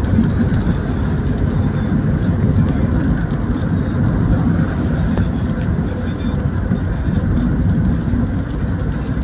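Cabin noise of a car driving on a wet road in rain: a steady low rumble of tyres and engine, with a few faint ticks of raindrops on the car.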